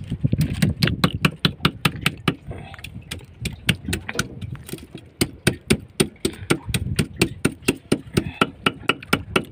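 Large kitchen knife rapidly chopping bait on a cutting board, a steady run of sharp chops about three to four a second, mincing the bait fine.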